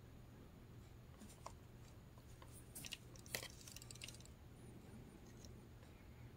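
Near silence, with a few faint clicks and rubs as a plastic Sony Walkman cassette player is turned over in the hand.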